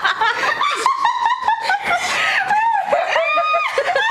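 A person laughing hard in rapid, high-pitched bursts, with a brief held squeal about three seconds in.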